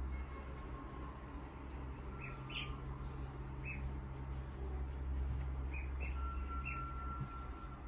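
Short, high-pitched chirps from a small animal, about six of them scattered through, with one longer held high note near the end, over a steady low hum.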